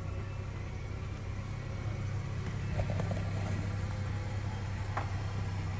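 Steady low mechanical hum, like a motor or engine running nearby, with a couple of faint clicks about three and five seconds in.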